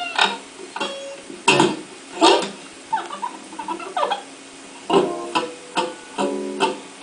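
Music: single notes plucked on a guitar-like string instrument at an uneven pace, each struck sharply and dying away.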